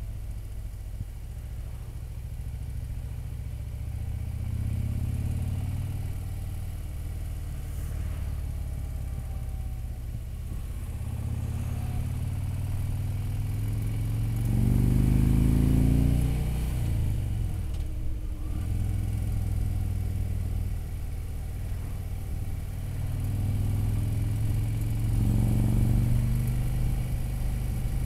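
Motorcycle engine running while riding at town speed, its pitch rising as it accelerates about halfway through, the loudest part, then falling as it eases off, with another pickup near the end.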